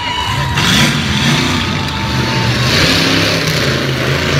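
Monster truck's engine running loud and revving up and down as the truck drives off.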